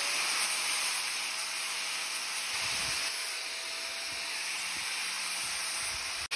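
Angle grinder with a flap disc sanding and shaping an oak block: a steady hiss of abrasive on wood over the grinder motor's faint whine.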